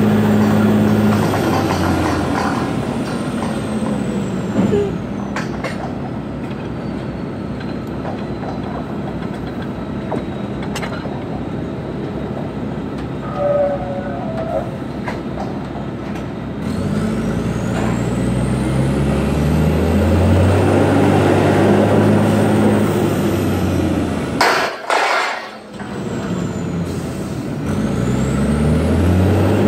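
Workover rig engine throttling down, running rough and low for a stretch, then revving up in steps as the blocks are hoisted. About 25 s in the engine sound drops out briefly with a short hiss of air, then climbs again.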